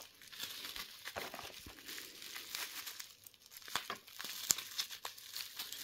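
Plastic bag and packing material crinkling and rustling as hands rummage in a cardboard shipping box, with a few sharp little clicks and taps among it.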